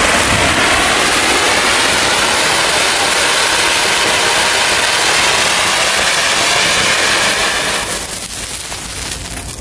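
Large matka anar fountain firework spraying sparks with a loud, steady hiss, which dies down about eight seconds in.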